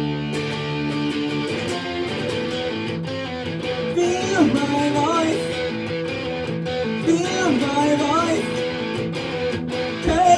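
Electric guitar playing held chords, with sliding, bending melodic phrases about four and seven seconds in.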